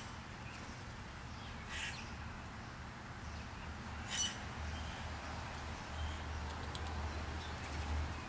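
Two short, harsh bird calls, about two and four seconds in, with a few faint clicks later over a low steady hum.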